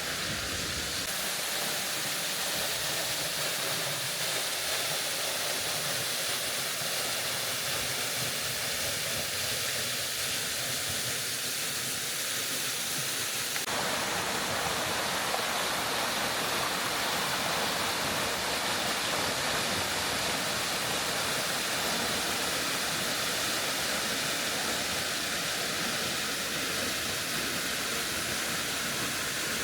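A rain-swollen waterfall and creek rushing in a steady, even roar, which grows brighter about halfway through.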